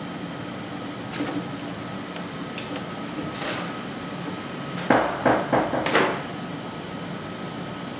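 Plastic tubing and connectors of a perfusion tubing pack being handled and fitted. There are a few light clicks, then a burst of knocks and rattles about five seconds in, over a steady background hum.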